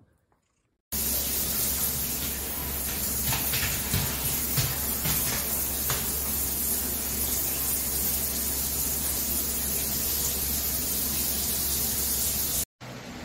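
Shower running: a steady spray and hiss of water falling into a shower tray, with a low hum beneath and a few light knocks in the middle; it cuts off suddenly near the end.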